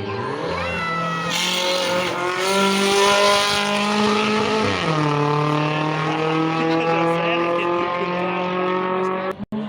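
A rally car's engine accelerating hard. It climbs in pitch, holds high, then drops at an upshift about five seconds in and climbs again.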